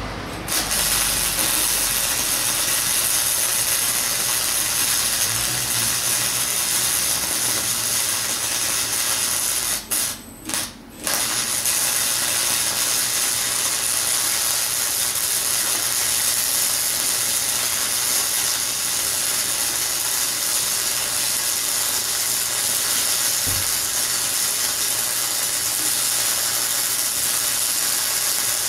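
Campbell Hausfeld 105 MIG welder's arc running a weld bead on steel, a steady crackling sizzle. It starts about half a second in, stops briefly twice about ten seconds in as the arc is broken and restruck, then runs on.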